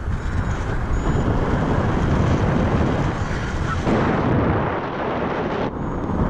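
Wind rushing over the camera microphone of a paraglider pilot in flight: a loud, uneven rushing heaviest in the low end, surging and easing in gusts.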